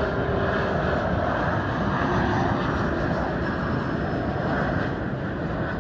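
Airliner's engines passing low overhead: a loud, steady rushing noise that eases slightly near the end.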